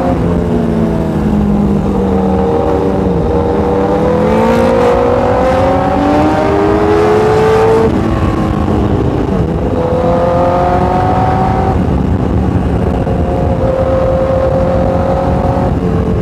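Honda CBR1000RR inline-four sportbike engine pulling at speed. Its pitch climbs steadily for several seconds, drops sharply about halfway through, rises again briefly, then holds at a steady cruise, over a constant rush of wind noise.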